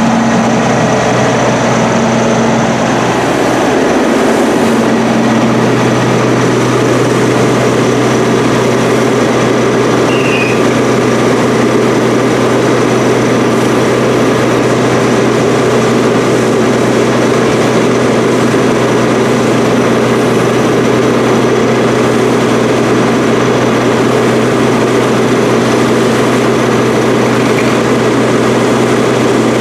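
Fire engine's engine running steadily at pumping speed, a constant low hum whose pitch shifts about four seconds in, under a steady broad hiss of water spraying from the hose line onto the burning car.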